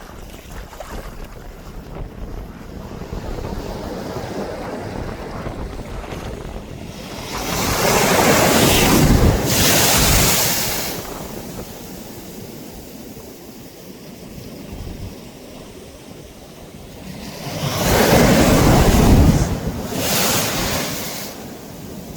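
Ocean waves breaking on a beach: two big waves crash about ten seconds apart, each swelling up and then washing out, with softer surf and wind on the microphone between them.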